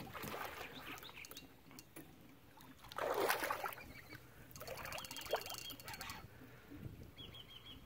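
Water splashing as a hooked alligator thrashes at the surface, one burst of splashing about three seconds in. It is followed by a brief run of rapid fine ticking.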